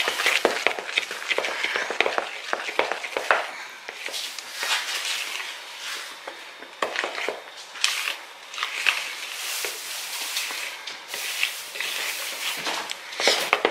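Large metal spoon stirring Cool Whip and peanut butter in a mixing bowl: irregular scraping strokes and clicks of the spoon against the bowl.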